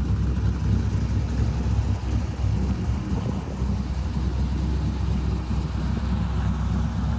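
Cammed LS1 V8 (233/239 camshaft) in a Nissan S14 drift car idling, a steady low-pitched engine sound with a choppy, pulsing low end.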